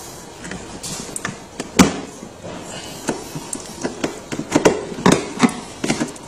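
Irregular clicks and knocks of hard plastic parts being handled and pressed into place on a kids' ride-on truck's body, the sharpest knock about two seconds in and a quick run of them near the end.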